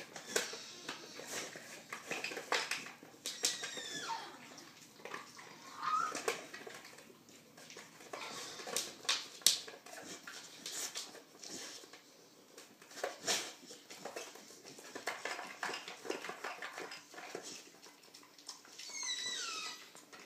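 A dog working a round plastic treat-puzzle toy: repeated plastic clicks and knocks as it noses and licks at the compartments, mixed with snuffling. There are a few short, high, falling whines, one near the end.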